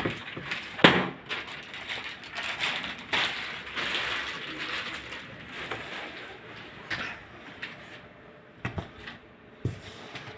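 Handling noises as packaging and machine parts are moved: a sharp knock about a second in, then scraping and rustling, and a few short knocks near the end.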